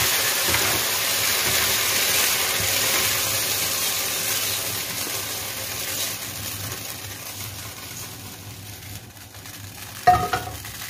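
Hot oil sizzling in a nonstick wok as stir-fried beef and onion are scraped out with a plastic spatula. The sizzle dies down over the second half, and a sharp knock comes near the end as the pan is set back down on the gas burner.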